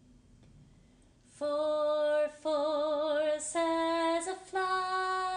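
A female voice singing four long wordless notes without accompaniment, starting about a second and a half in. The notes climb in pitch, and the second is held with vibrato.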